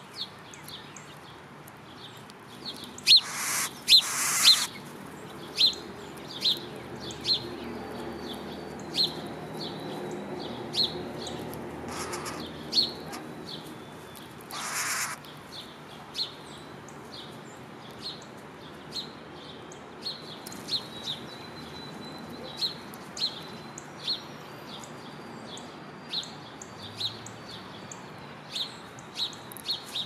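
Small songbird giving short sharp chirps, about one a second, steady throughout. Brief louder rushing sounds come twice around three to four seconds in and once about fifteen seconds in.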